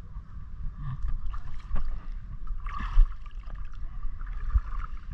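Shallow seawater sloshing and splashing as a scoop net and hands move through it, with low rumbling and knocks on the microphone. A louder splash comes about three seconds in.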